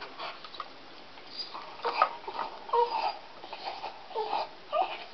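Deaf dog whining and crying in short, repeated cries while gnawing on a wooden stick, with sharp clicks of its teeth on the wood. The dog cannot hear itself as it cries.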